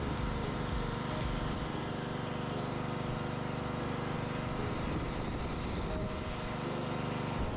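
Gas pressure washer with a Honda GCV190 single-cylinder engine running steadily, its high-pressure spray hissing against the concrete.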